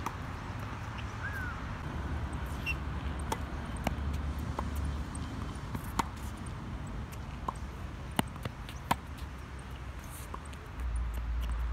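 Tennis rally on a hard court: sharp racket strikes and ball bounces every second or two, the loudest pair less than a second apart near the end, over a low steady rumble.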